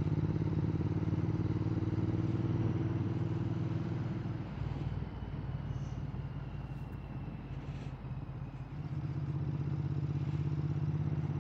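Motorcycle engine running steadily on the road, picked up by a mic in the rider's helmet. It gets quieter for a few seconds in the middle, then picks up again.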